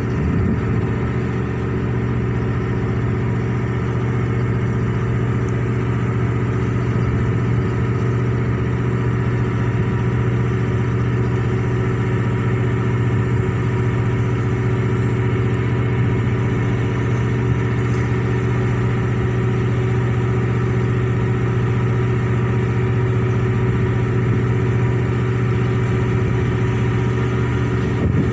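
Marine diesel engine running at a steady speed, its deep, even note holding the same pitch throughout.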